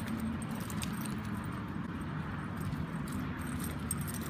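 Light metallic jingling and clinking of a dog's collar and leash hardware as the dog moves about on the leash, over a steady low background rumble.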